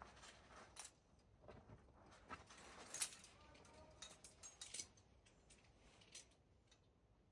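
Climbing hardware clinking: a run of light, irregular metallic clicks and short scrapes, bunched loudest about three seconds in.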